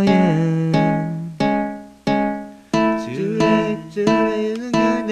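Acoustic guitar strumming chords in a steady rhythm, about one strum every 0.7 s, each left to ring. From about halfway a voice sings along.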